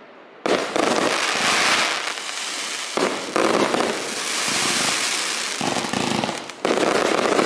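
Compound firework cake of 25 and 30 mm shots firing a dense rapid-fire sequence. It starts about half a second in after a brief lull, and fresh louder volleys cut in at about three and a half and about seven seconds.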